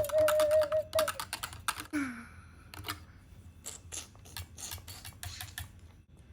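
Whisk or utensil beating batter against a bowl: fast clicking at about ten strokes a second for the first second, then sparser, irregular clicks for a few seconds more. A voice held on one steady note runs under the first second of clicking.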